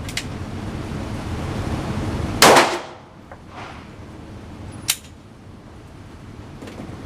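A single gunshot about two and a half seconds in, with a short echoing tail, then a shorter, quieter sharp crack near the end, over a steady low rumble.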